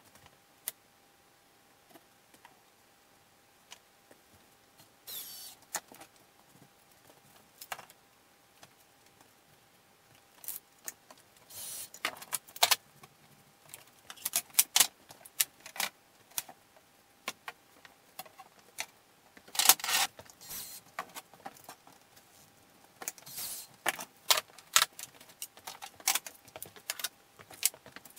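Workbench handling noises: scattered taps, knocks and metallic clinks of clamps and tools being picked up, set down and tightened on wooden edge strips, with brief scraping sounds. Sparse at first, busier from about a third of the way in.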